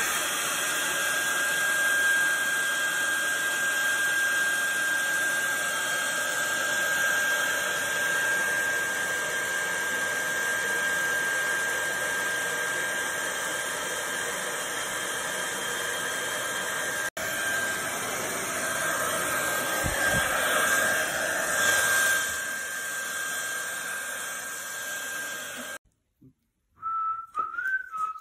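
Handheld hair dryer blowing steadily with a high whine, drying water-washed graphics card circuit boards. It stops abruptly near the end, and a person whistles a few wavering notes.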